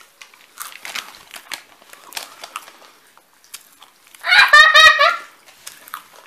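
A young girl's high-pitched excited squeal, lasting about a second, some four seconds in. Before it come faint scattered crackles and clicks from the popping candy and its wrappers.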